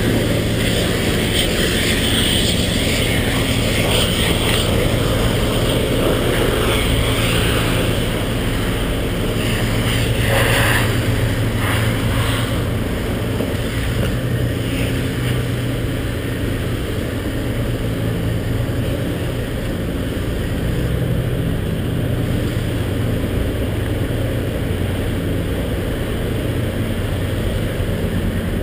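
Steady engine drone: a low even hum under a dense rumbling noise, with a brief louder hiss about ten seconds in.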